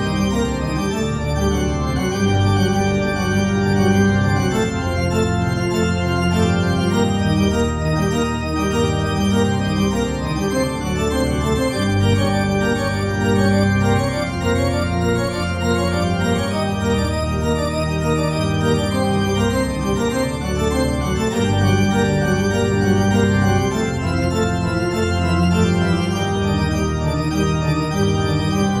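Organ music playing slow, held chords that change every second or two at an even loudness.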